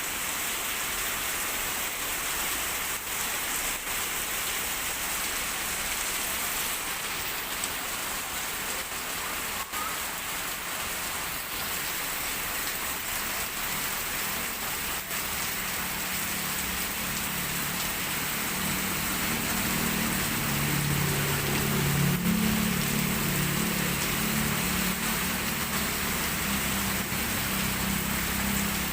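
Heavy rain pouring down steadily. A low drone builds in the second half and is loudest about two-thirds of the way through.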